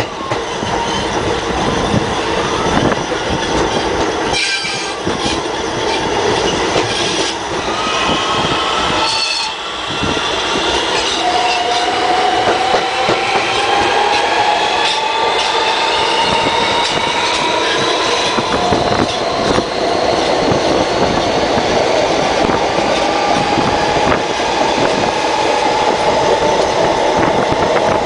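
Siemens-propelled R160B subway car heard from between two cars: steady wheel-on-rail noise with knocks over rail joints, and from about a third of the way in a whine from the traction motors that slowly rises in pitch as the train picks up speed. Wind buffets the microphone.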